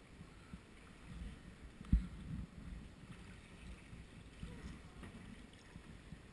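Sea kayaks moving slowly on calm water: quiet paddle strokes and water lapping, with a single sharp knock about two seconds in.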